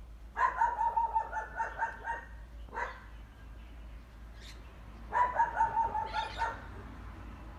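An animal calling in two runs of rapid, evenly pitched yaps, about six a second and each lasting nearly two seconds, the second run starting about five seconds in, with a couple of single short calls between.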